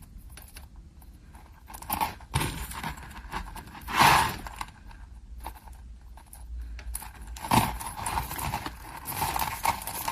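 Small metal jewelry chains and findings clinking and jingling as they are handled, with a few sharper knocks; the loudest knock comes about four seconds in, and the clinking grows busier near the end.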